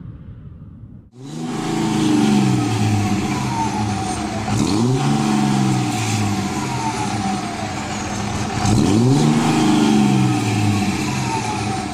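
Cummins turbo diesel in a Dodge Ram 2500, breathing through an aFe 4-inch turbo-back exhaust with a large muffler, accelerating hard from about a second in. The engine pitch climbs, then drops back and climbs again twice, as at gear shifts.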